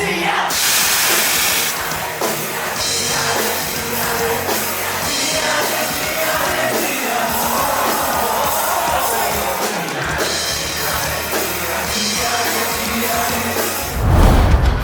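Loud rock music with a drum kit and a singing voice, with heavy low drum hits coming in near the end.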